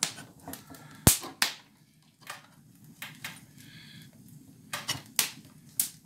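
Metal skewers clicking and knocking against an iron asador frame as they are pushed through a raw beef flank: a string of irregular sharp clicks, the loudest about a second in.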